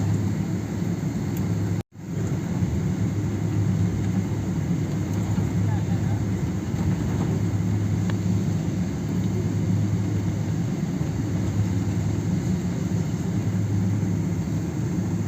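Steady airliner cabin noise: an even, low hum and rush from the engines and air system with the aircraft on the ground before takeoff. The sound cuts out for a moment about two seconds in, then resumes unchanged.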